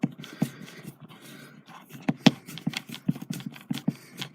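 Screw being driven in by hand with a screwdriver: an irregular run of short clicks and scrapes.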